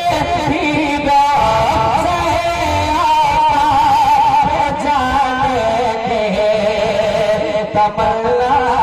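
A man singing a naat, an Islamic devotional poem, into a microphone over a PA system: a drawn-out vocal line whose held notes waver and glide in pitch, with few breaks.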